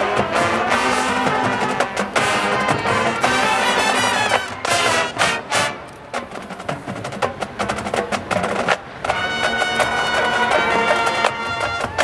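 College marching band playing, brass with drums and percussion. Around the middle the music drops back to sharp percussion strikes, then the brass returns with held chords about nine seconds in.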